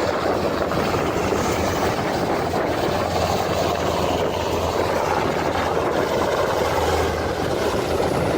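Aircraft engine noise, steady and unbroken, with a low hum under it.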